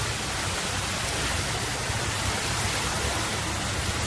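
Cars driving through a flooded street, their tyres throwing up sprays of water, over a steady hiss of rain and running water.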